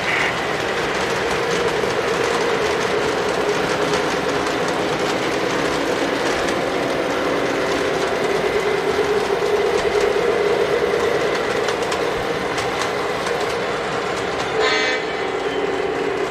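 Model train running on the layout: a steady rumble with a constant motor-like hum, and a short pitched sound near the end.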